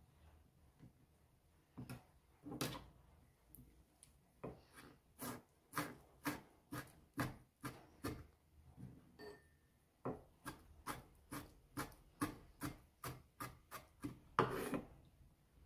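Chef's knife slicing and chopping tomatoes on a wooden cutting board: a run of light knocks of the blade on the wood, about two a second, with one longer, louder stroke near the end.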